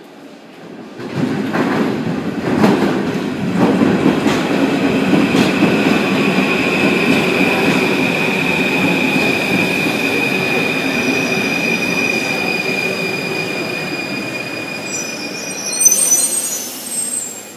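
Steel-wheeled Paris Métro Line 5 train rumbling into the station, with a few clacks over the rail joints early on, then a long, steady high-pitched wheel and brake squeal as it slows. A short loud hiss of air comes near the end as it stops.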